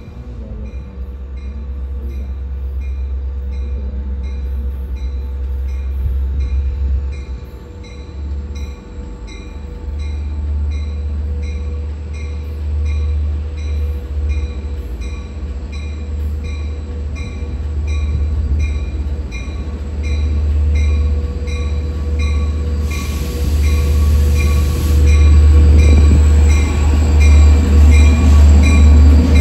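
Long Island Rail Road diesel locomotive hauling bilevel coaches approaching and pulling into the station. Its deep engine rumble grows louder as it arrives, and a bell rings steadily about twice a second throughout. A short hiss comes about two-thirds of the way in, with wheel or brake squeal as the train draws alongside.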